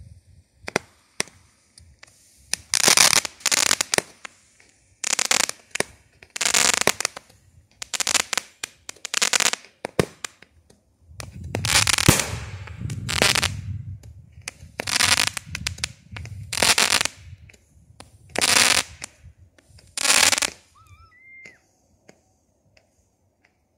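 Aerial fireworks going off one after another: about a dozen loud crackling bursts, one every second or two, stopping near the end.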